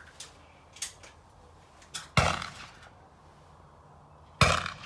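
Two air rifle shots a little over two seconds apart, each a sharp crack with a short fading tail, with a few faint clicks before them.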